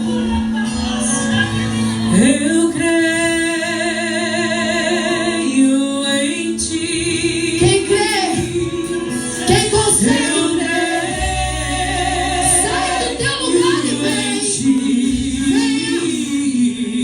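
Gospel worship music: voices singing held, wavering notes over a sustained instrumental accompaniment.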